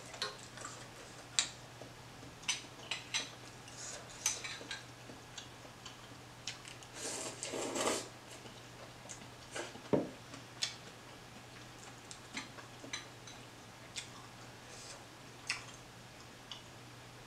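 Chopsticks clicking and tapping against a metal pot of noodle soup, in scattered single knocks, with a wet slurp of noodles lasting about a second, seven seconds in.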